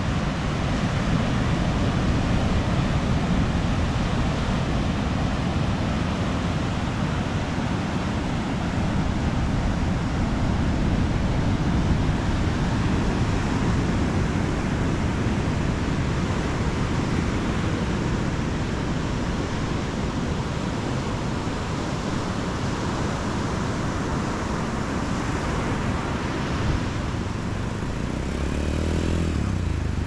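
Steady noise of ocean surf breaking on the beach, with wind rumbling on the microphone. Near the end a quad bike's engine comes close and passes, its pitch sliding as it goes by.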